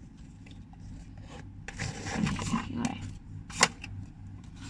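Faint rustling and scraping of small play-cooking items being handled, with one sharp click about three and a half seconds in, over a steady low hum.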